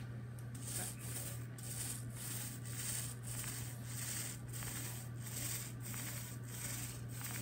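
A small paint roller rolling back and forth through wet glaze on a tabletop. It makes a rhythmic swishing, about two strokes a second, over a steady low hum.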